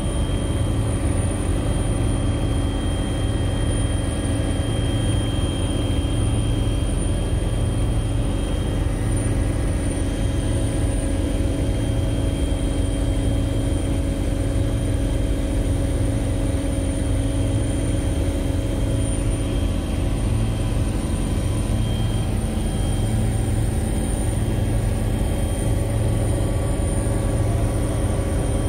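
Steady drone of a helicopter in flight, heard from inside the cabin: rotor and turbine noise with a thin, constant high whine.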